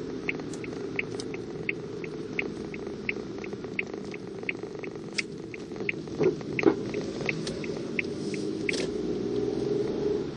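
Car turn-signal indicator ticking about three times a second inside the cabin, over steady road and engine noise, stopping about nine seconds in; a couple of louder knocks about six to seven seconds in.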